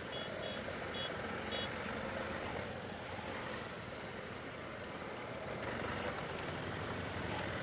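BMW F 800 GS parallel-twin engine running steadily at low speed off-road, with wind and tyre noise.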